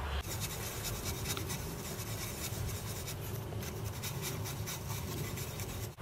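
Faint rubbing and scratching of hands handling a cotton bud and a Deoxit contact-cleaner applicator, over a steady background hiss.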